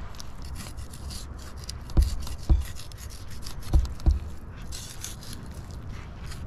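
Knife scraping and cutting through a salmon's flesh and along its bones during filleting, in rapid rasping strokes, with four dull knocks in two pairs about two and four seconds in.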